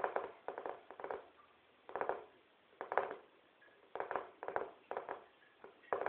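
A kitten chewing, making short crackly crunches that come irregularly about once or twice a second.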